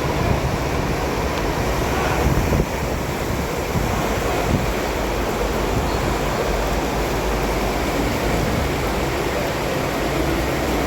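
Steady rumble of road and tyre noise from a moving BYD superarticulated electric bus, with no engine note, and a couple of small knocks.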